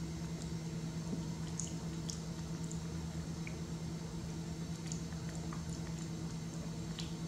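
Faint wet clicks and smacks of a baby macaque chewing food taken from a spoon, scattered irregularly over a steady low electrical hum.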